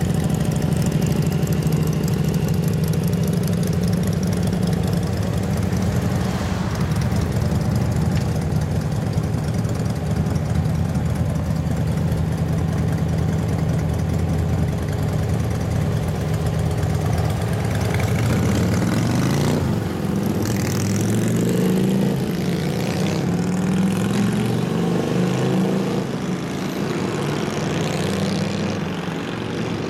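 Several motorcycles idling together, cruisers and a big scooter, with a steady low engine note. About two-thirds of the way through the engines rev up with a rising pitch as they pull away, and the sound drops a little as they ride off.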